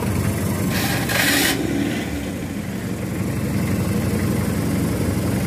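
Jeep Willys engines running with a low, steady rumble, with a brief hiss about a second in.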